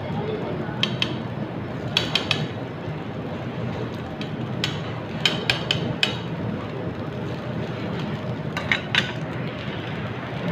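Sharp metal clicks and taps of utensils on a steel hibachi griddle, coming in quick clusters of two to four, over steady background noise.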